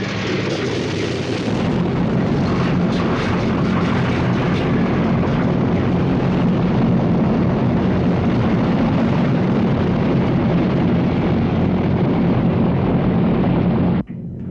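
Loud, steady rumbling roar with a low drone from a film soundtrack's sound effects, cutting off abruptly near the end. The loudness stays pinned flat, the mark of heavy brickwall peak limiting in this Blu-ray mix.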